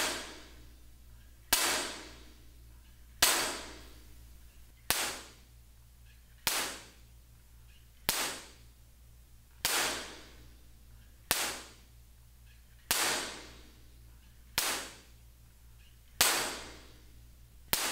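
Clapper sticks struck together with a sharp crack about every 1.6 s, each crack followed by a short fading room echo. The first strikes are in a bare, flat-walled room and ring out longer. The later ones, with sound absorber and diffuser panels in place, die away more quickly.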